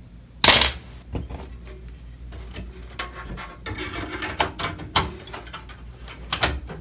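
Clicks, knocks and rattles of metal computer-case parts and expansion cards being handled and fitted into a PC case: a sharp clack about half a second in, then a run of small clicks, with another cluster of sharp clicks near the end.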